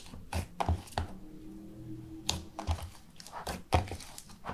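Clear slime being kneaded and pulled by hand in a plastic tub as green dye is worked in: an irregular run of short, wet clicks and squelches.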